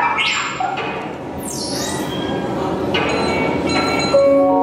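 Queue-hall crowd noise with a high swooping electronic whistle, then about four seconds in a louder electronic chime of several held tones sounds, the chime that opens a boarding announcement over the public-address system.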